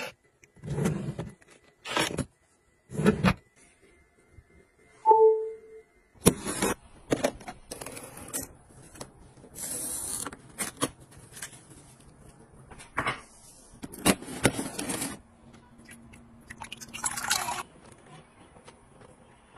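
Household gadget sounds in turn: a few soft thuds from a smart nightstand drawer and a short electronic beep from its lock about five seconds in; then plastic cling film crinkling and rasping as it is pulled from a box dispenser and cut with the slide cutter; then a soft swish of a squeegee wiping a foamy mirror near the end.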